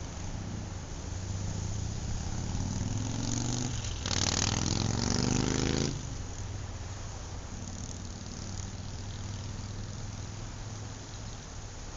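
A motor vehicle's engine passes close by on the road. It builds over a few seconds and is loudest for about two seconds near the middle, then drops off suddenly. A steady rush of wind and road noise runs underneath.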